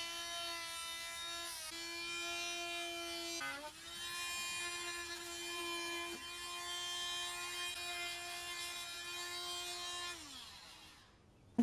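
Dremel rotary tool running at high speed, a steady whine, while cutting the opening for an electrical box in wall paneling. It dips briefly about a third of the way in, then winds down near the end.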